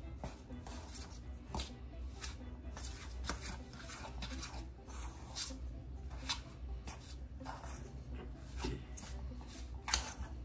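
A metal spoon scraping and clinking against a small stainless steel mixing bowl in quick irregular strokes, several a second, as crunchy peanut butter and powdered sugar are stirred into crumbles. A low steady hum runs underneath.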